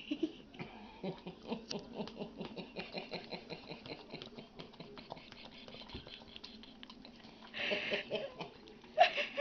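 Boston terrier licking again and again at mashed potato stuck on its nose: a quick run of wet licks and lip-smacks, several a second, with a short breathy noise near the end.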